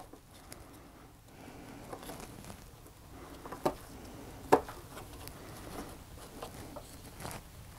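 Handling noise of a plastic clip being worked onto a webbing strap: soft rubbing and rustling with scattered small clicks, the two loudest about three and a half and four and a half seconds in.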